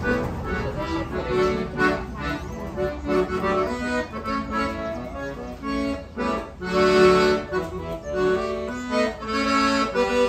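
A gospel chorus tune played live on an instrument alone, with no singing: a melody over held chords, changing every second or so.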